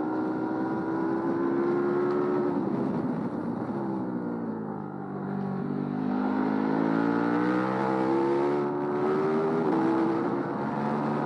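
KTM 1290 Super Duke R's 1301 cc V-twin engine pulling hard with rising revs, then falling away as the bike slows for a couple of seconds. It climbs again through the revs and drops suddenly near the end, as at a gear change.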